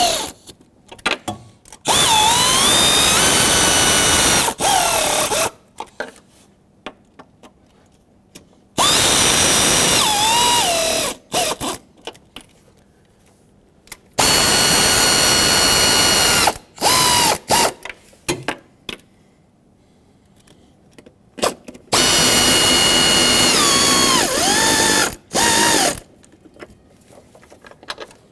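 A power tool driving the valve cover bolts down in four runs of about three seconds each, plus a few short blips. At the end of each run the motor's whine drops in pitch as it bogs down: the bolt has bottomed out. Short clicks come between the runs.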